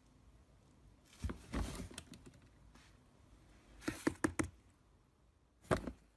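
Light plastic knocks and clatters from a small swing-lid trash bin as a cat climbs on it. There is a cluster about a second in, a quick run of four or so around four seconds, and one more near the end.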